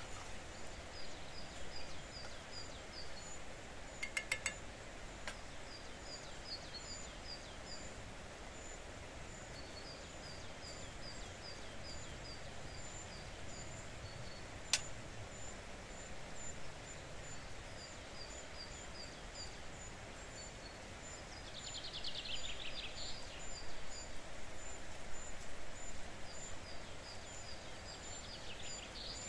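Small birds singing quick runs of repeated high notes over a steady background rush, with a few sharp clicks about four seconds in and once near the middle.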